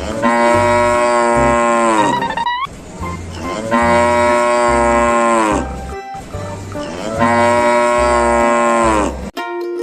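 A cow mooing three times, each moo about two seconds long and falling slightly in pitch at its end, over background music with a steady beat.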